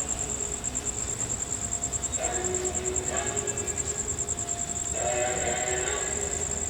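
Several voices chanting together in long held tones that start again about two, three and five seconds in, under a steady high whine.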